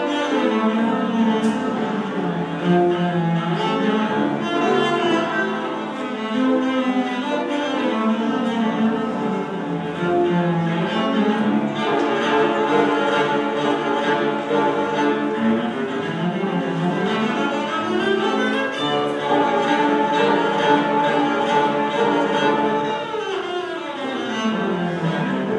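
Solo cello played with the bow: a continuous melody of sustained notes, sliding up in pitch about two-thirds of the way through and sweeping down near the end.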